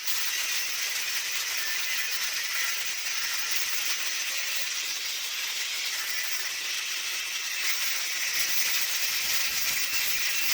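Angle grinder with a cutting disc cutting through the steel of an old hammer head: a steady, high-pitched hissing whine.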